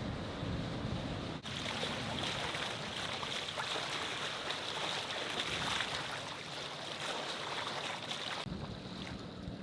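Sailboat under way: wind on the microphone and water rushing along the hull, with a low engine hum in parts. The sound changes abruptly about a second and a half in and again near the end, where the hissy water and wind noise gives way to a steadier rumble.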